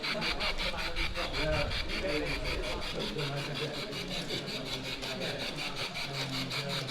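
G-gauge model train running on its layout, making a quick, even rasping rhythm of about seven beats a second, with people talking in the background.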